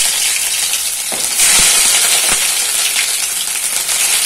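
Chopped onion sizzling in hot oil in a kadai: a loud, steady frying hiss that swells again a little after a second in.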